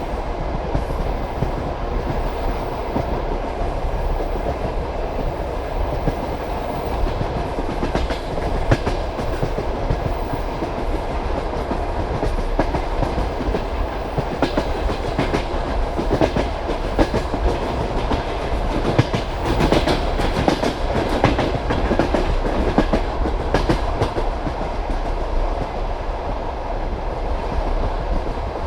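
Passenger train carriage rolling at speed: wheels clattering over the rail joints over a steady rumble, the clacks coming thicker and louder through the middle stretch.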